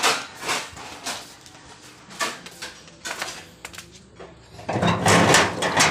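A few sharp knocks and clatters while walking, then a longer metallic rattling scrape near the end as a steel sheet-metal gate is pushed open.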